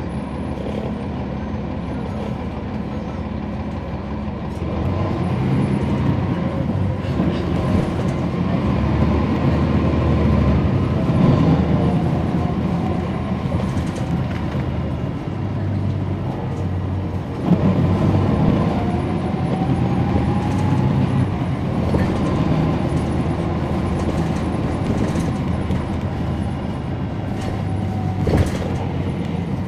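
Inside a NABI 40-SFW transit bus: its Cummins ISL9 diesel engine running steadily, getting louder about five seconds in as the bus picks up speed, then easing off, with road noise and rattles. There is a sharp knock past the middle and another near the end.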